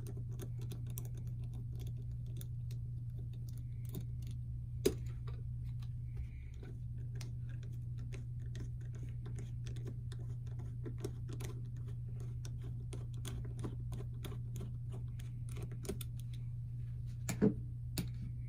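Small metallic ticks and clicks of a hand screwdriver backing out the small locking screw of a Martini Cadet rifle's breech block, with a sharper click about five seconds in and two louder clacks near the end as the parts are handled. A steady low hum runs underneath.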